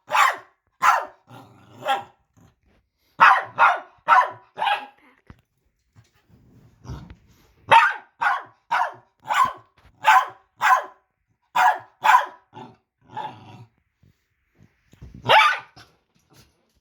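A dog sneezing over and over: short, sharp sneezes in quick runs of three to six, about sixteen in all, with a low rumble between some of them.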